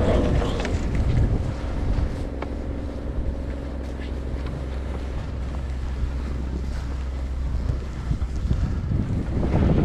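Wind buffeting a camera microphone as a skier glides downhill through fresh snow: a steady low rumble that swells at the start and again near the end.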